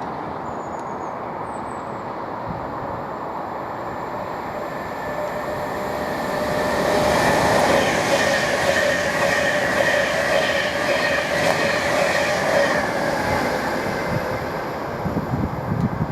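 A train passing by: its rumble and wheel noise build to a peak about halfway through and ease off near the end, with a steady high whine over the loudest part.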